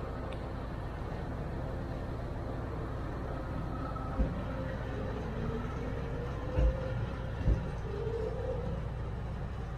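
Norfolk Southern freight train of coal cars rolling past at close range: a steady low rumble with faint wavering squeals. Three short low thumps come in the second half.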